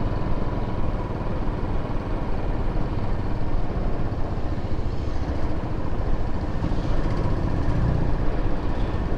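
Motorcycle being ridden: the engine runs steadily with its fast low pulsing under a continuous rush of road and wind noise.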